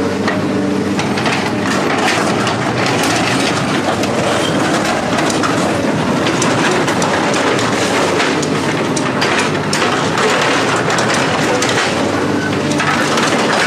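A motor running steadily under loud, continuous metal rattling and clanking.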